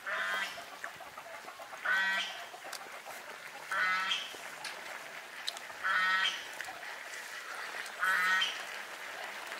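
A farm bird calling five times, evenly about two seconds apart, each call short.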